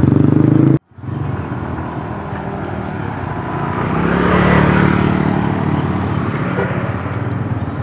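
Motorcycle engines on a road. A close engine breaks off abruptly just under a second in. Then a motorbike carrying two riders passes close, its engine swelling to a peak about four seconds in and fading as it rides away.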